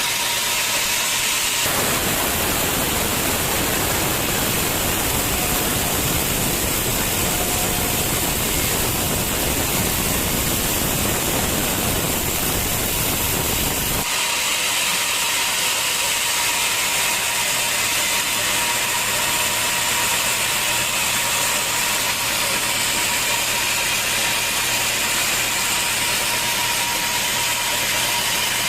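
Sawmill saw running with a steady, loud mechanical whir and hiss. The sound changes abruptly, growing fuller about 2 s in and thinner again about 14 s in.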